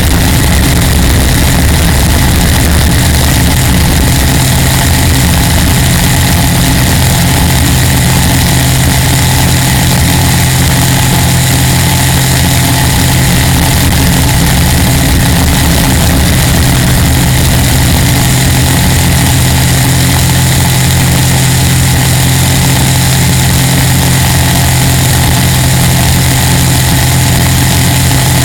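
Chevrolet ZZ4 350 small-block V8 on 180-degree headers running loud and steady at speed. The 180-degree headers give it an even, unusual note that doesn't sound like a typical V8.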